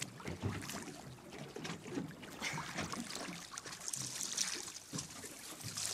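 Sea water splashing and lapping against a boat's hull as a diver swims up alongside it. The splashing is loudest about four seconds in.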